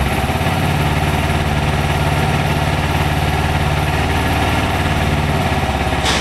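Carbureted parallel-twin engine of a 2009 Kawasaki Ninja 250R (EX250R) idling steadily.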